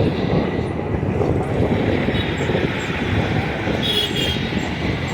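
Steady, mostly low-pitched vehicle noise running without a break, with a brief faint high chirp about four seconds in.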